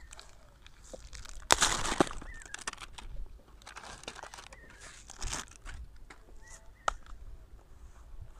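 Rustling and clicks from a plastic chemical jar being handled and its screw cap worked loose, loudest about a second and a half in. A few short bird calls sound in the background.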